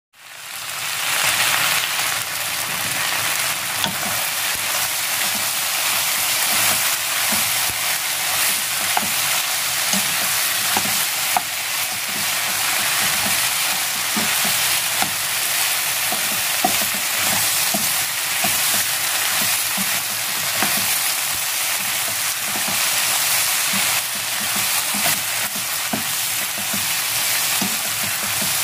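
Ham, cabbage and onion stir-frying in olive and sesame oil in a nonstick frying pan: a steady sizzle that fades in at the start, with small clicks and scrapes of a utensil stirring and tossing the food.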